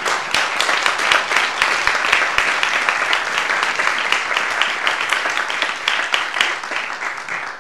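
Congregation applauding: a dense run of many hands clapping that swells quickly and dies away near the end.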